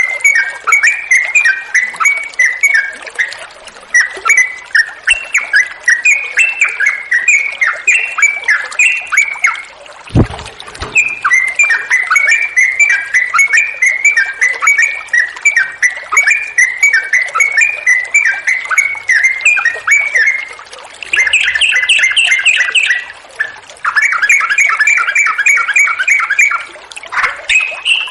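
Yellow-vented bulbul (trucukan) singing long, rapid runs of short notes that rise and fall, phrase after phrase, in full song. There is one short break about ten seconds in, marked by a single low thump.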